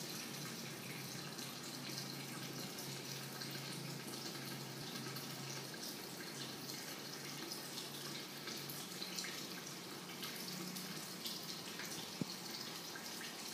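Aquarium filter running: water trickling and dripping steadily into the tank, over a low steady hum.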